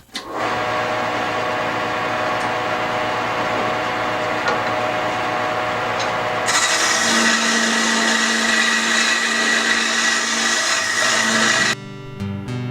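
Wood lathe running with a steady whine while a turning tool cuts down a spinning maple blank; the cutting hiss grows louder and brighter from about six and a half seconds in. Near the end it cuts to acoustic guitar music.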